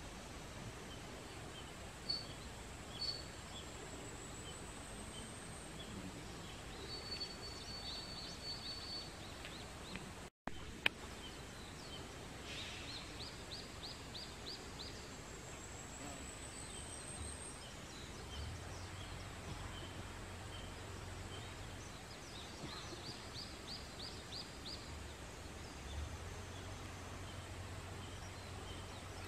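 Birds calling over quiet forest background, with rising high whistles and quick runs of chirps. In the second half, the low steady engine hum of a JR Shikoku 1000 series diesel railcar comes in and grows a little near the end as the car approaches slowly. The sound cuts out for a moment with a click about ten seconds in.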